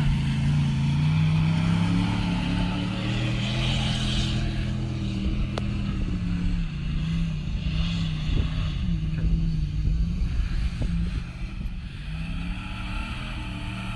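2010 Ford Raptor's V8 engine running under changing throttle, its pitch rising and falling over the stretch.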